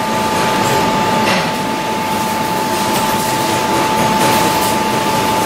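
Manual milling machine running under power feed, a 6 mm four-flute high-speed-steel end mill slotting galvanised steel pipe at full depth. A steady high whine sits over a rough, rattling cutting noise.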